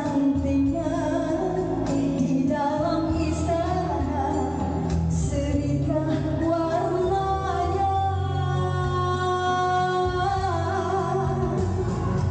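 A woman singing a Malay ballad live into a handheld microphone, amplified over musical accompaniment, holding one long note in the second half.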